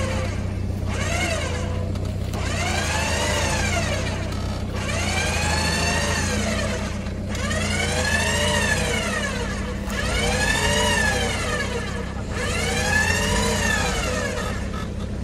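A siren wailing, its pitch rising and falling in even sweeps about every two and a half seconds, over a steady low engine hum.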